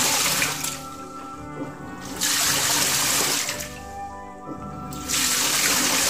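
Hitachi BeatWash 8 kg top-loading washing machine washing a load: water sloshes and splashes in loud surges about every three seconds, each lasting over a second, with steady tones beneath.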